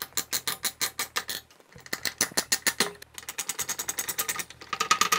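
A screwdriver undoing the mounting screws of an AMD Wraith Stealth CPU cooler: rapid clicking, about nine clicks a second, in four runs of about a second each.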